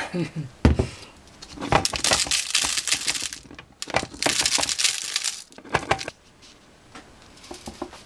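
Birdseed poured through a plastic funnel into a plastic 2-liter soda bottle: a dense rattling patter of seeds in two long pours with a short pause between, after a single knock near the start.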